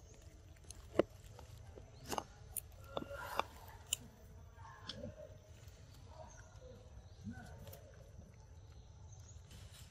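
A macaque feeding among vines and leaves: a quick run of sharp snaps and crackles from stems and leaves between about one and four seconds in, the loudest near the start, then softer rustling.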